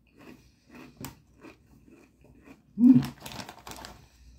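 Close-up crunchy chewing of a thick, deep-ridged potato chip, about four crunches a second, followed a little before the end by a brief burst of crinkling from the foil chip bag being handled.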